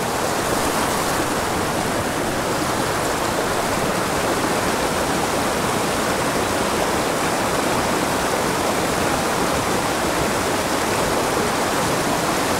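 Small mountain creek rushing steadily over rocks and a little waterfall into a pool: a constant, even roar of water.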